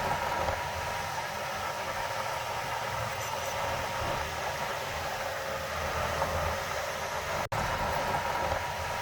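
Heavy diesel earthmoving machinery running steadily, a low engine rumble with a faint steady whine over it. The sound breaks off for an instant about seven and a half seconds in, then carries on.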